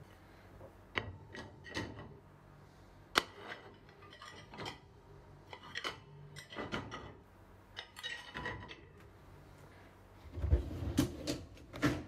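Plates being loaded into a dishwasher's wire racks: scattered clinks and knocks as dishes are set in place. A louder clatter with a dull thud comes about ten and a half seconds in.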